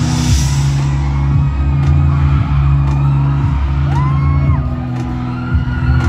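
Live band playing a song through an arena PA, heard from the crowd: held low notes with a drum hit about once a second. A fan's high scream rises over the music about four seconds in.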